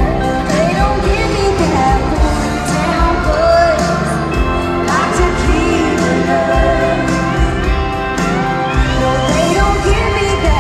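A live country band playing with a singer's voice over the music, amplified through the PA and echoing in a large arena.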